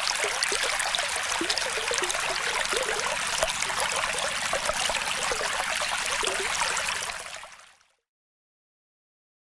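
Steady rushing, bubbling water noise that fades out about seven seconds in, leaving silence.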